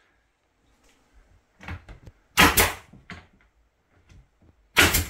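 Pneumatic nail gun firing nails through pine tongue-and-groove lining boards into a ceiling: two sharp shots, one about halfway through and one near the end, with a few lighter knocks between them.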